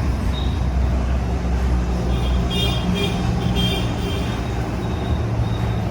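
A steady low rumble like a running vehicle engine, with faint high tones coming and going partway through.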